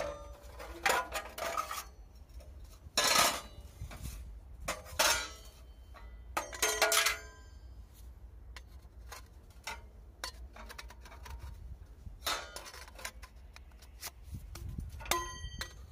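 Sections of a portable wood stove's steel chimney pipe clanking and scraping as they are pulled out of the stove top and slid together. A series of separate metallic knocks and clinks, some ringing briefly; the last, near the end, rings most clearly.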